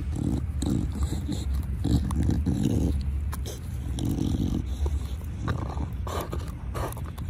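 Pit bull snorting and grunting through her nose in repeated short bouts while chewing on a stick, with a few sharp crunches of the stick near the end.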